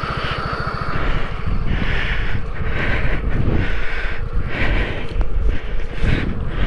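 Scooter engine running under throttle, its rear wheel spinning in soft sand and digging itself into a hole, with several short rushing bursts over the steady engine rumble.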